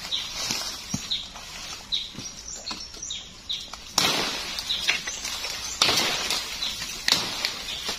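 Leaves and branches rustling, with sharp snaps of twigs, as overhead branches are pulled down by hand; the rustling comes in louder bursts in the second half. A bird gives short, repeated falling chirps through the first half.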